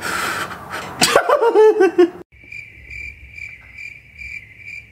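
A brief burst of laughing, then crickets chirping from about two seconds in: a steady, even chirp repeating about three times a second, the stock awkward-silence cricket effect.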